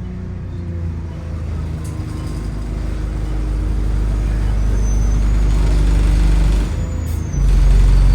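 Bus diesel engine running as the bus pulls forward, a steady low hum that grows louder, dips briefly about seven seconds in, then comes back noticeably louder.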